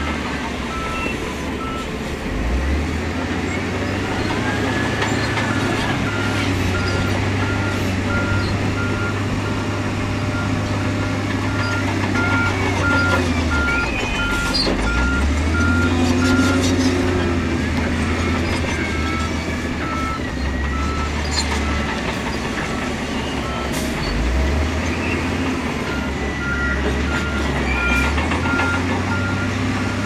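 Diesel engines of heavy earthmoving machines running under load, the engine note dropping and picking up again a few times. A reversing alarm beeps about twice a second over it, pausing twice, with occasional short knocks.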